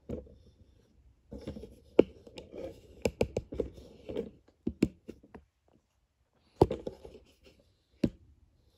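Ratchet on the crank snout turning a Ford 427 SOHC short block's crankshaft and rods over by hand: irregular clicks and knocks, sharpest about two seconds in and again about two-thirds of the way through.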